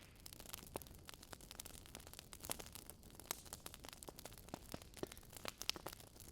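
Wood fire crackling in a fireplace: irregular sharp pops and snaps, several a second, over a faint steady hiss.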